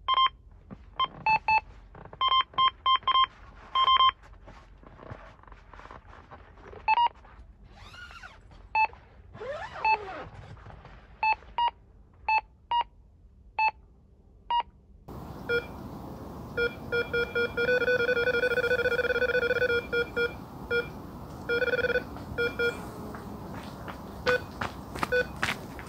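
Electronic carp bite alarms beeping as a fish takes line: irregular single and paired beeps, then a lower-pitched alarm beeping in fast strings, almost without a break for a couple of seconds in the middle of that stretch.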